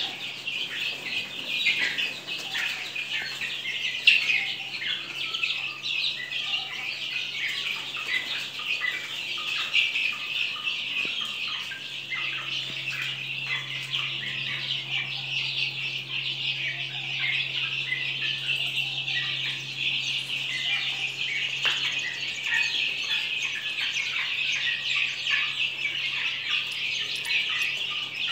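A flock of desi chicks peeping continuously, many high chirps overlapping, with now and then a louder single cheep. A faint low steady hum runs underneath, a little stronger in the middle.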